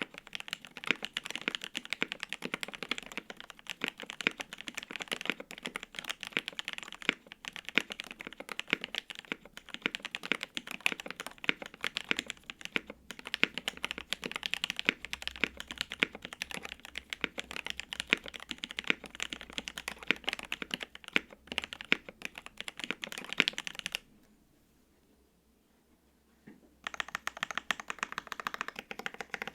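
Steady, fast typing on a custom KBD8X MKII mechanical keyboard with lubed Alpaca V2 linear switches on an FR-4 plate and GMK double-shot ABS keycaps. The keystrokes run as a dense stream of clicks, stop for about three seconds near the end, then start again.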